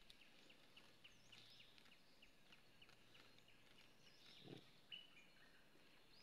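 Near silence: faint outdoor ambience, with a quiet high ticking call repeating about four times a second that stops about two-thirds of the way through, and a few brief high chirps.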